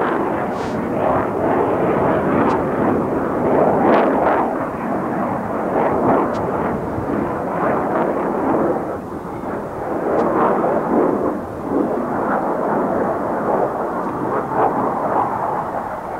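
Jet noise from the twin General Electric F404 turbofan engines of an F/A-18 Hornet in display flight: a loud, rough rush that swells and eases every few seconds as the jet manoeuvres.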